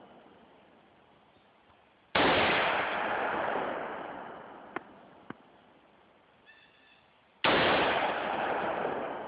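Two shots from a home-built AR-15 carbine, about five seconds apart, each followed by a long echo that dies away over a couple of seconds. A couple of faint clicks come between the shots.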